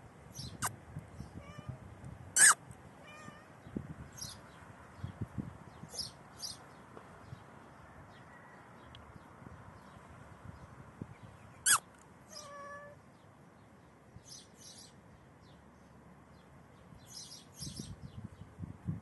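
Pregnant cat meowing a few times in short, faint calls, a sign of the restlessness before labour. Two sharp high-pitched sounds, about two and a half seconds in and near the middle, are the loudest events, and high chirps are scattered throughout.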